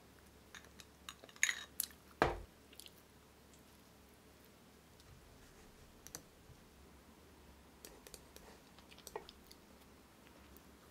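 Sparse, quiet clicks of a computer mouse, with soft chewing of salt bread and one louder knock about two seconds in.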